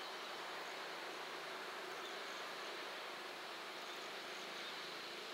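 Faint, steady outdoor background noise with insects chirping faintly and high-pitched.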